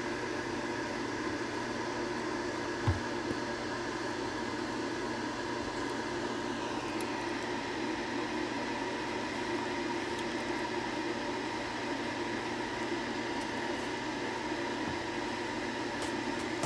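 A steady machine hum with an even hiss, of the kind a running fan makes, with one short low thump about three seconds in.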